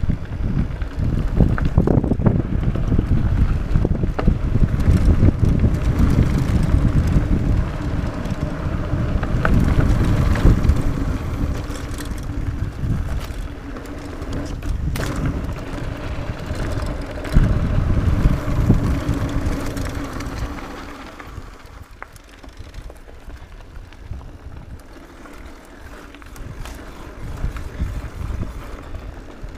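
Mountain bike descending a dirt trail at speed: wind buffeting the camera microphone over the rumble of tyres on dirt, with frequent rattles and knocks from the bike over bumps. The noise eases about two thirds of the way through as the bike slows.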